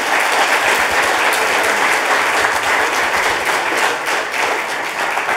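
Audience applauding, many people clapping at once in a dense, steady patter.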